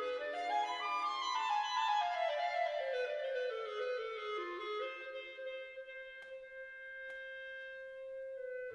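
Background music: a single melodic wind line runs up in quick steps, then descends more slowly and settles on a long held note for the last few seconds.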